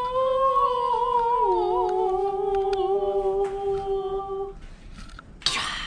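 A person humming a held note that steps down to a lower held note about one and a half seconds in, fading out after about four and a half seconds. A few light clicks fall partway through, and a short breathy burst comes near the end.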